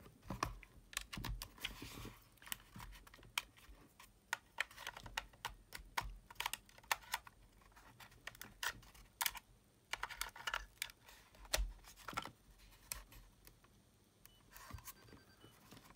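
Sony WM-EX900 cassette Walkman being handled: an irregular string of small clicks and taps as the headphone plug is pushed into its jack and its side control buttons are pressed.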